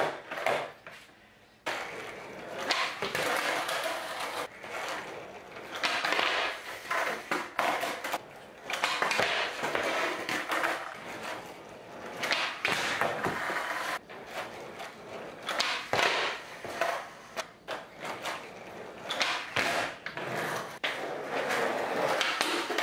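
Skateboard wheels rolling on a concrete floor, with repeated sharp clacks of the board popping and slapping down during flip-trick attempts.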